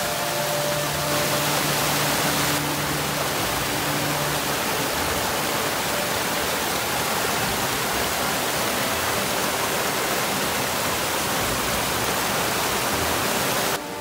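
Mountain stream rushing over mossy boulders in small cascades: a loud, steady rush of water that drops off suddenly near the end.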